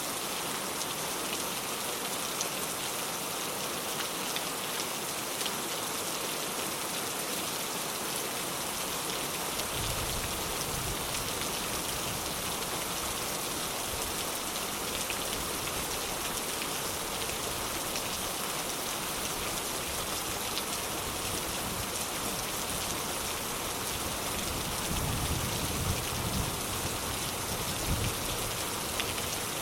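Steady heavy rain, an even hiss of drops on surfaces. A low rumble joins underneath about a third of the way in, and low swells of distant thunder come near the end.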